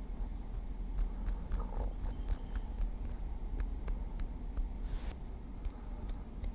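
Light tapping with a small wooden stick: a string of quick, irregular, clicky taps, about three or four a second, with a brief scratchy sound about five seconds in, over a steady low rumble.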